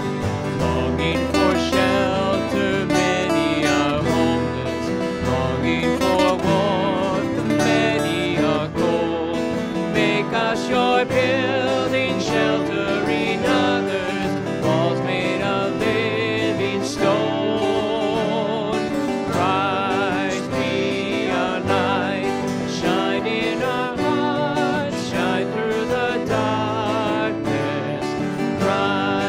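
Hymn played on two strummed acoustic guitars, with voices singing along.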